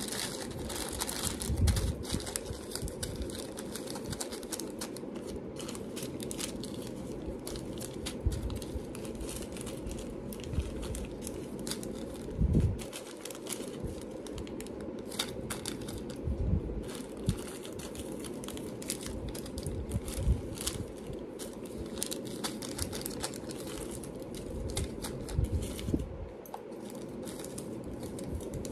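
Packets of jewelry findings and beads crinkling as they are handled and sorted, with many light clicks and a few louder knocks.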